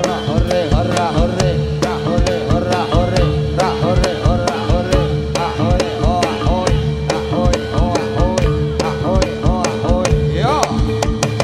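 Loud Javanese gamelan accompaniment for jathilan: rapid hand-drum strokes that slide up and down in pitch, over sharp regular beats and a steady held tone.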